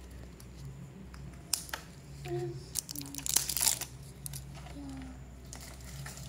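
Crinkling and tearing of the printed foil wrapper on a plastic surprise egg as it is peeled by hand: scattered crackles, with a denser burst of rustling about three to four seconds in.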